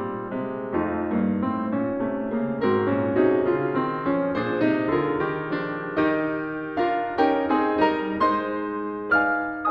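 Background piano music, a run of struck notes over held chords.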